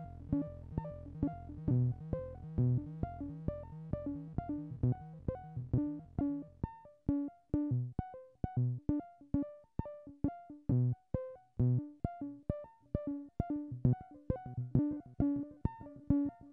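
Homebuilt analog synthesizers, a Sound Lab Mini-Synth and an MFOS WP-20, play a repeating step-sequenced pattern of short pitched notes at about five a second, clocked by a Doepfer MAQ 16/3 sequencer. A low held tone under the notes fades out over the first few seconds, leaving short, clipped notes.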